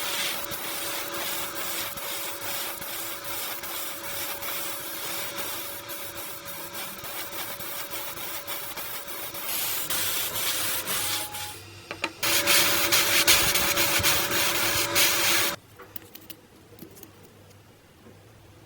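Power sander running and sanding, a steady motor whine under a loud rasping hiss. It pauses briefly about twelve seconds in, resumes louder, and cuts off suddenly a few seconds before the end.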